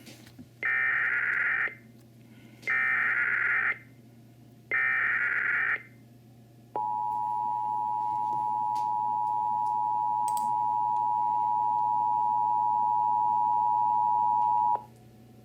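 Emergency Alert System header: three screeching data bursts of about a second each, then the two-tone attention signal held steady for about eight seconds before cutting off. This is the start of a broadcast emergency alert, here a flash flood warning.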